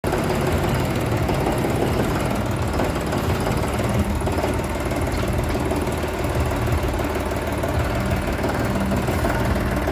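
John Deere 5405 tractor's three-cylinder turbo diesel engine running steadily at low revs.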